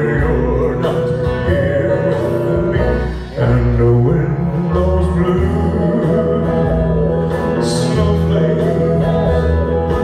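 Country-style music with guitar and a steady bass line, a man singing over it into a handheld microphone, with a brief dip about three seconds in.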